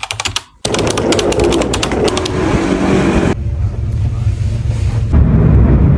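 A rapid run of clicks and rustling, then a steady low rumble of a passenger train heard from inside the carriage, which gets louder near the end.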